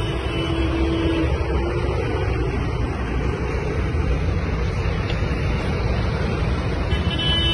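Highway traffic passing close by: trucks and cars with engine and tyre noise, and a steady tone that fades out about a second in.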